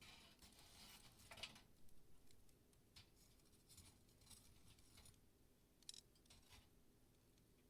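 Campfire burning down, faint crackling with scattered small pops and ticks, the sharpest crackles at the very start and about a second and a half in.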